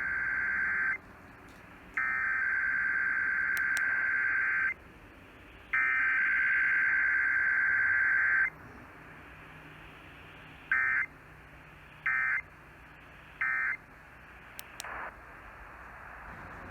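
Emergency Alert System digital data bursts received on a radio broadcast for a test: three long buzzing header bursts about a second apart, then, after a short gap, three brief end-of-message bursts. Faint radio hiss fills the gaps.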